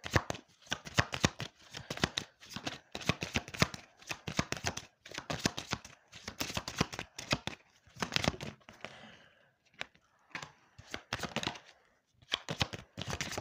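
A deck of oracle cards being shuffled by hand: quick runs of soft flicks and slaps of card on card, in bouts broken by brief pauses.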